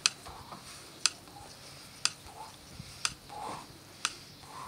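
Timer ticking sharply once a second, five even ticks, counting out the seconds of a timed hold.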